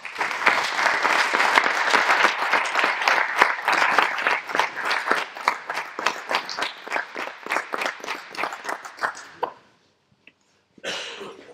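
An audience applauding in a hall: a dense round of clapping that thins out into scattered claps and stops about nine seconds in.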